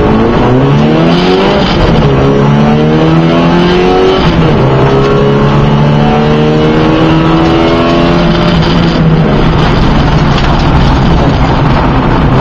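Race car engine heard from inside the car, accelerating hard up through the gears. The engine note climbs, drops sharply at gear changes about two and four seconds in, climbs again, and then holds fairly level.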